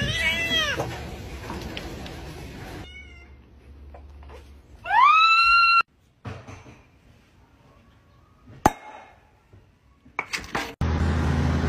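House cats meowing and yowling: a cream cat yowls in the first second, and a loud call rises in pitch and holds about five seconds in. A single sharp pop comes about nine seconds in, from a cork drawn out of a bottle.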